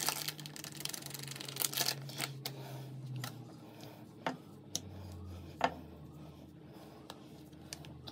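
Quiet handling noises from working mochi dough by hand on a worktop: soft rubbing for the first couple of seconds, then scattered light taps and clicks.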